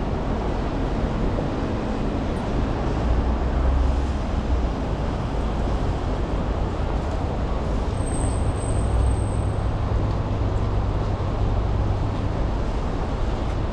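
Steady city street traffic noise, with a low engine rumble that swells twice as vehicles pass, and a brief high-pitched tone about eight seconds in.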